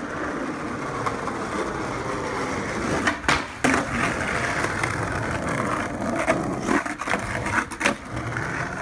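Skateboard wheels rolling over rough asphalt, a steady grinding hiss, with several sharp clacks of the board about three seconds in, again half a second later, and twice more near seven and eight seconds, as it pops and lands tricks.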